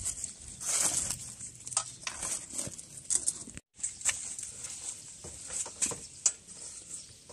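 Rustling of leaves and soft irregular taps as leaf-wrapped sticky-rice dumplings are picked out of a metal tray and laid on a perforated steamer rack.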